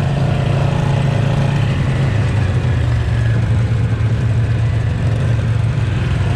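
ATV engine running steadily while riding, a low, even hum.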